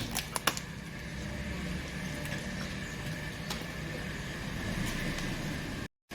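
A car running steadily at low speed, a continuous low rumble, with a few sharp cracks in the first half second.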